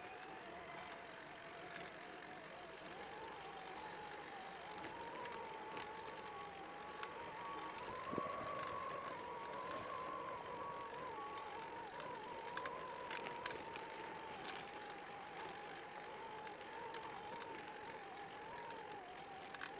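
Tadpole recumbent trike rolling along a concrete path: a steady running noise with a whine that wavers and rises a little in pitch in the middle, and a few light ticks.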